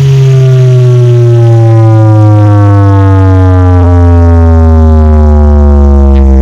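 Carnival sound system (RAIN AUDIO) playing a very loud, single long tone with many overtones that glides slowly and steadily downward in pitch, like a bass sweep.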